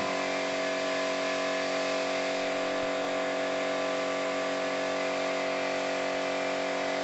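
Steady hiss of compressed air and paint from a gravity-feed spray gun laying colour coat on a car's door panels, over a steady machine hum.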